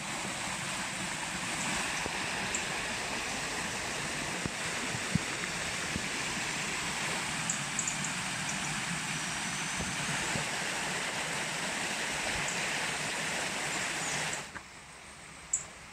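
Shallow river rushing steadily over rocks and stones. Near the end the rush cuts off abruptly, leaving a much quieter background with a faint click.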